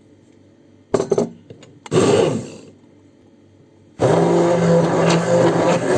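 Electric blender whipping mayonnaise: two short bursts about a second apart, then the motor switches on about four seconds in and runs steadily and loudly.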